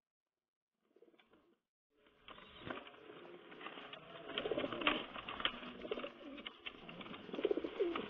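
A cage of homing pigeons cooing, starting about two seconds in, with scattered short scratchy clicks. The cooing swells louder twice, about halfway through and near the end.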